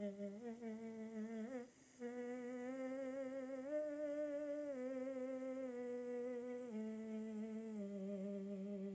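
A man singing a soft, sustained vowel A in a deliberately 'dopey' voice, a vocal-exercise technique meant to keep the larynx low, giving a smoother tone. He steps up through a few notes and back down like a scale, with a brief break for breath about a second and a half in.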